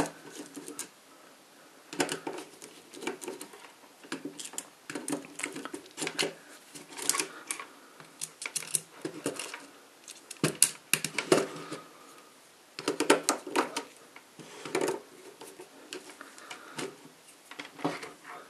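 Irregular bursts of plastic clicking and tapping as a contactor is handled on a wooden bench and multimeter probe tips are set onto its screw terminals, with short quiet gaps between.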